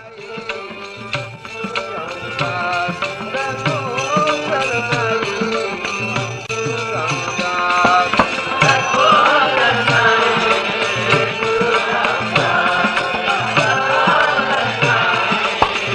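Instrumental opening of a Sikh kirtan: tabla drumming under held notes and a melody, fading in at the start, with the melody growing stronger about halfway through.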